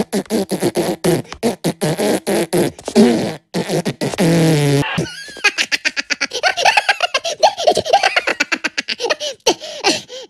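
Cartoon Minions cackling and giggling in high, squeaky voices with rapid bursts of laughter, broken about four seconds in by a long, low, buzzing fart-like noise lasting about a second.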